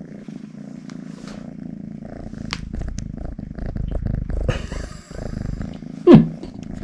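Domestic cat purring steadily close to the microphone. About six seconds in there is one short, loud sound that falls sharply in pitch.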